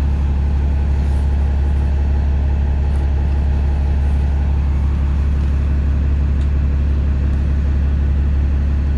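Steady low rumble of a city transit bus, heard from inside the passenger cabin.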